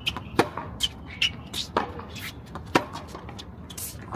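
Tennis balls struck with rackets in a hitting rally: three sharp pops about a second apart, with lighter squeaks and scuffs between them.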